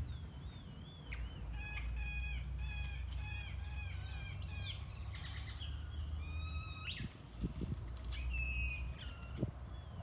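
Birds calling: a quick run of short, repeated call notes about three a second, then two more bursts of calls, the last near the end. A faint wavering whistle comes at the start, over a low steady rumble.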